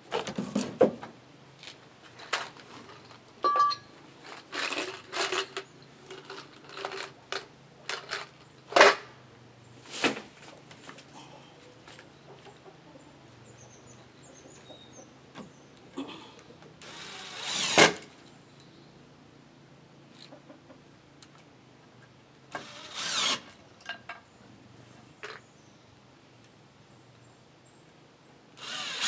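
A power drill runs in three short bursts of about a second each, among scattered knocks and clatters of deck boards and tools during porch decking repair.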